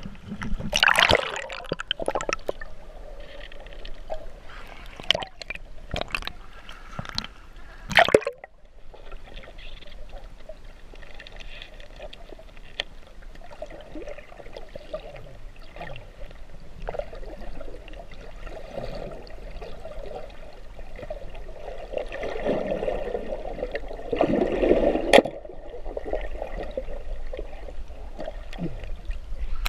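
Seawater sloshing and splashing against an action camera at the surface for the first eight seconds or so, then the muffled, steady noise of the camera underwater. A single sharp click comes near the end.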